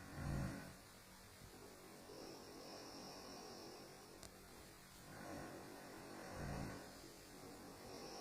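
A sleeping dog snoring: two short, low snores about six seconds apart, with fainter breaths between them.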